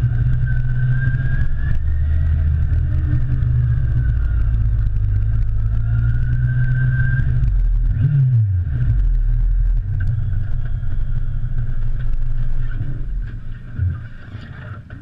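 Motorcycle engine running as the bike rides at low speed. About eight seconds in, the revs drop sharply; near the end the sound falls to a quieter, near-idle level as the bike slows to a stop.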